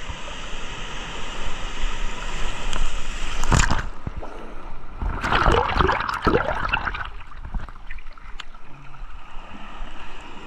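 Shallow sea surf washing around and over a camera held at the waterline: the water rushes and gurgles against the microphone. About five seconds in, a wave briefly submerges it in a loud surge lasting a couple of seconds.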